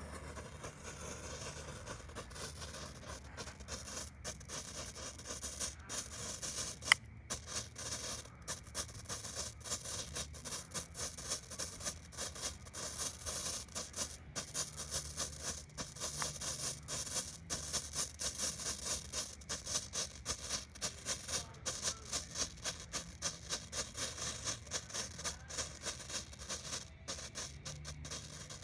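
Jumbo Strobe firework burning: a hiss broken by rapid sharp sputtering pulses, about three a second, which build up over the first few seconds. One louder click about seven seconds in.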